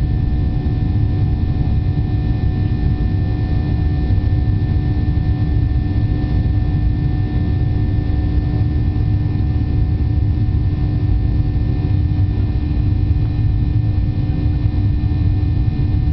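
Jet airliner cabin noise: the engines and rushing air make a steady, even low roar, with a couple of steady whining tones above it.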